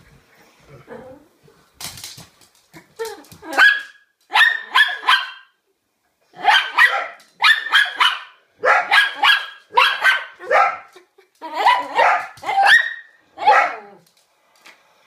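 Small shaggy dog barking repeatedly in quick runs of several barks each, from about three seconds in until near the end. This is excited, demanding barking to be given the post.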